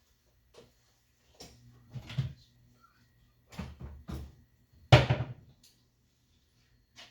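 Several knocks and clatters of kitchen items being handled, the loudest about five seconds in.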